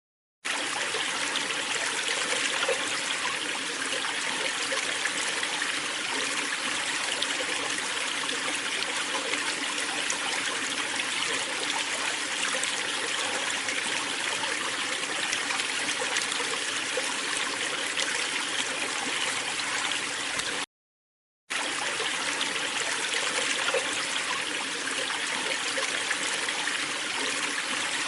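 Waterfall water falling and splashing in a steady rush, broken by a silent gap of under a second about three-quarters of the way through.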